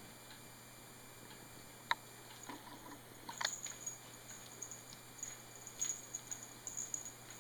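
Kitten playing with a soft toy caterpillar: faint, scattered light taps and scuffles, with a sharper tap about two seconds in and small bursts of patter around the middle and near the end.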